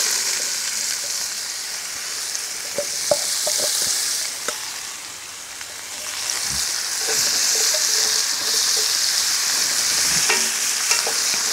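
Diced zucchini and cucumber sizzling in hot oil in a cast-iron pan, with a few light knocks as they are stirred with a wooden spatula. The sizzle eases a little around the middle and picks up again.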